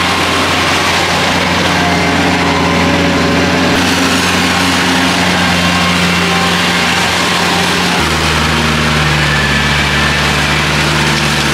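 Kubota tractor's diesel engine running steadily under load while its cage wheels and rotavator churn through flooded paddy mud. About eight seconds in, the engine note steps down abruptly.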